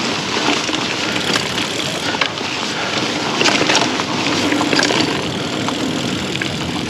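Mountain bike rolling along singletrack over dirt and pine straw: a steady rushing tyre and air noise with frequent short clicks and rattles from the bike over the bumps.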